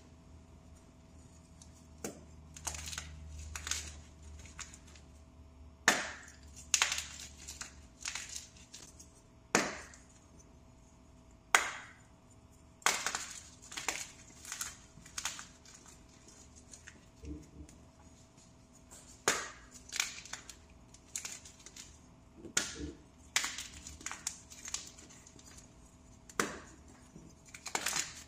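Freshly made plain powder blocks crushed by hand: a long run of sharp, dry crunches, irregularly spaced about a second apart, some trailing into a softer crumble.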